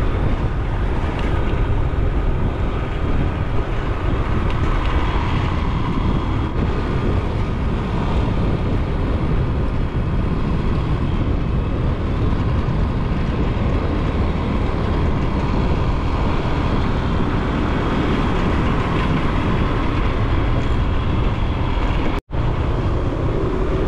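Steady rushing noise of riding a motorbike: wind buffeting the microphone over the engine and road noise. The sound drops out for an instant near the end.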